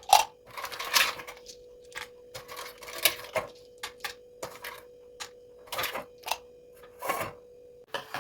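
Irregular clicks and short clattering knocks of small objects being handled, with a faint steady hum underneath that stops near the end.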